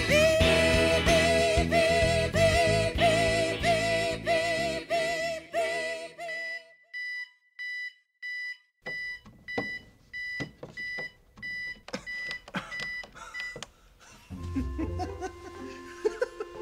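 Gospel choir music with a lead singer fades out over the beeping of a digital alarm clock. The alarm then beeps alone, about two beeps a second, and stops about fourteen seconds in, followed by low muffled sounds.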